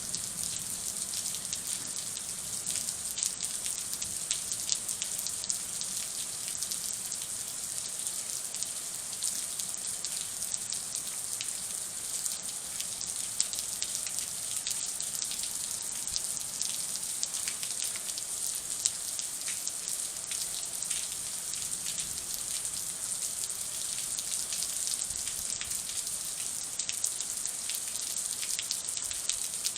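Rain falling steadily during a thunderstorm, a dense patter of drops.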